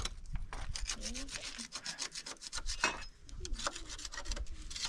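Quick, irregular scraping strokes against a hard surface, like a tool or abrasive worked back and forth by hand.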